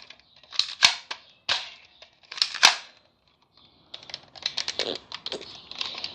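Sharp plastic clicks and clatter from airsoft gear being handled: a few separate clicks, then a quick run of rapid clicks in the last two seconds.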